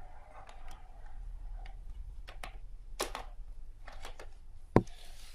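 Laptop battery being slid back into its bay on the underside of a laptop: a run of light plastic clicks and taps, then one sharp, loud click near the end.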